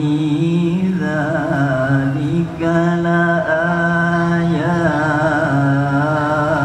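Man's voice in melodic Quran recitation (tilawah), sung into a handheld microphone. He holds long drawn-out notes with wavering ornaments, with a few short breaks between phrases.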